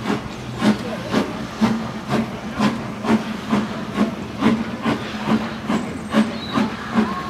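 Steam locomotive chuffing at an even beat of about two exhaust beats a second as it pulls away, with a steady hiss of steam.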